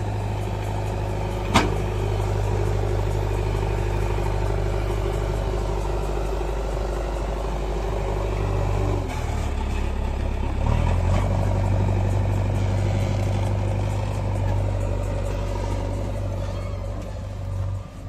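Diesel engine of a JCB 3DX backhoe loader running under load as it works its front bucket full of brick rubble, the engine note shifting about nine seconds in and again near eleven seconds. A single sharp clack about a second and a half in.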